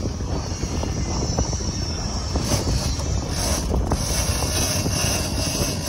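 Wind buffeting the microphone on an open boat at sea: a steady low rumble with faint scattered ticks.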